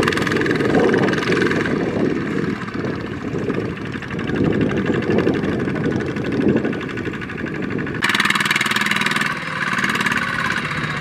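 Kubota ZT155 single-cylinder diesel engines of two-wheel walking tractors running steadily under load as they haul rice through deep mud. The sound changes abruptly about eight seconds in.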